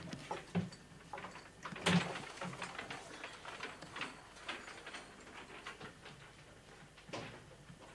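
Scattered light knocks, clicks and rustling from objects being handled and moved about, the loudest knock about two seconds in.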